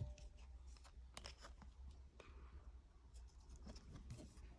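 Faint rustles and a few soft clicks of plastic card sleeves and a rigid top loader being handled, over near silence.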